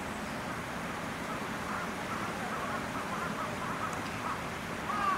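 Steady outdoor background noise, with a run of faint, short, repeated bird calls starting about two seconds in.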